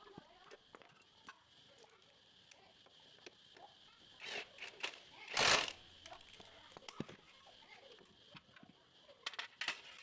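Scattered light metallic clicks and clinks of hand tools and small parts being handled, with one louder rushing noise about half a second long halfway through.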